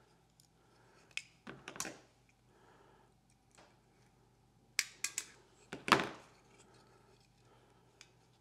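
Short clicks and knocks of a spring and 3D-printed plastic parts being handled and fitted together, a few scattered taps with the sharpest about six seconds in.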